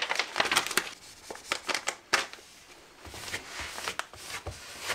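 Clear plastic transfer foil over a vinyl stencil crinkling and crackling as it is rubbed down by hand onto jacket fabric and lifted back at a corner: a scatter of short, irregular crackles and rustles.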